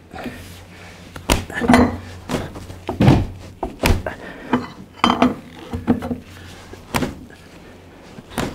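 Metal clinks and knocks of a wrench working the nut of a steel screw jack set in a log post, to lower the roof cornice of a log building. The strikes come irregularly, about once a second, some ringing briefly.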